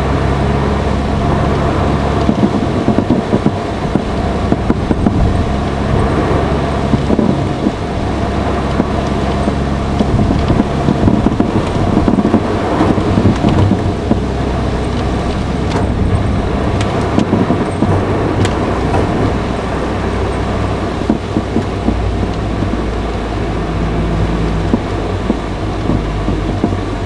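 Cabin sound of a Honda Fit (GE8) on the move: steady engine and road noise with a low hum, and a few sharp ticks about two-thirds of the way through.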